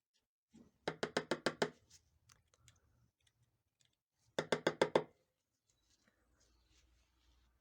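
Two bursts of rapid knocking, about seven quick knocks in each, roughly three seconds apart.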